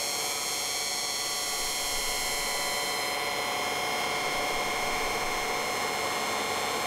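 Bicycle disc brake pads clamped on a rotor spun by a lathe at 800 rpm: a steady shrill screech made of several held tones over a grinding hiss, with the lathe running underneath. The rotor is heating until it glows orange and the pads are wearing away fast.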